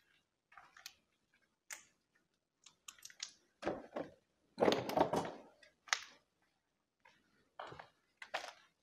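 Irregular short scrapes and crunches, a dozen or so, with a longer, louder one about halfway through.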